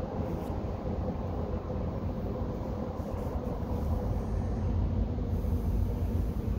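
Steady low vehicle rumble with a faint steady hum.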